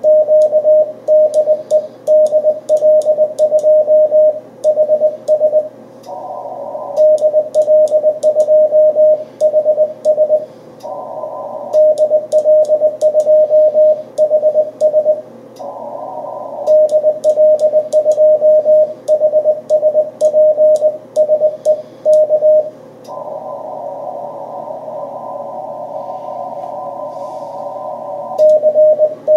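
Morse code (CW) on an amateur radio transceiver on the 40 m band: one steady tone keyed on and off in dots and dashes, with light clicks from the Morse key. The keying breaks off four times, longest for about five seconds near the end, and each pause fills with the receiver's band hiss.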